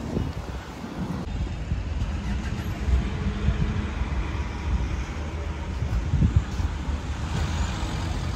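City street traffic passing, a steady low rumble with a few swells as vehicles go by.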